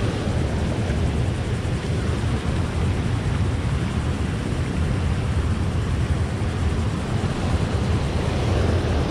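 Steady rushing noise of a small waterfall, with wind rumbling on the microphone.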